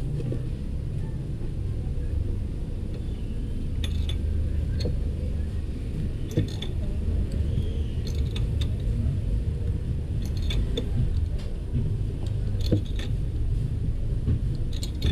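Scattered light metal clicks and clinks as a spark plug socket on an extension bar is worked into the engine's spark plug well. A steady low rumble sits under them.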